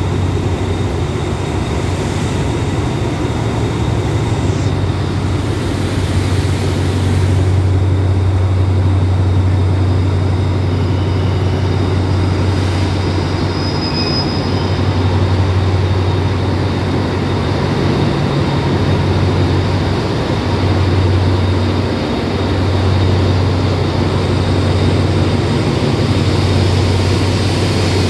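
Alsthom diesel-electric locomotive running at low speed as it hauls a train slowly along the platform: a loud, steady low engine hum that swells and eases a little in places.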